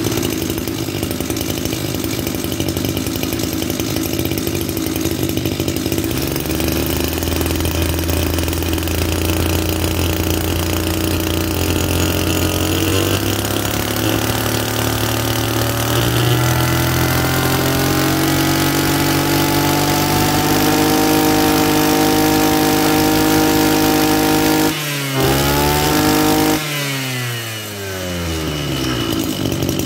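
Maruyama BIGM JC26 26cc two-stroke brush cutter engine running just after a pull start, its speed climbing slowly and steadily. Near the end the engine note dips briefly once, then slides steeply down in pitch before picking up again.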